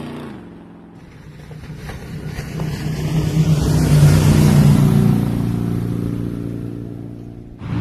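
A motor vehicle's engine that grows louder, peaks about halfway through and then fades away, like a vehicle coming near and moving off; it cuts off abruptly near the end as a different loud sound begins.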